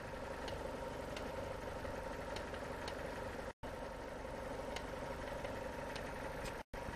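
Fiat Stilo running steadily at idle with a rattle and faint irregular clicks over the engine noise. The sound cuts out briefly twice.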